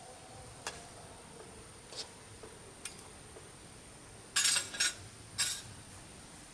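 Kitchen utensils against a cooking pot: a few light clicks and clinks, then three short, louder scraping clatters about four and a half to five and a half seconds in.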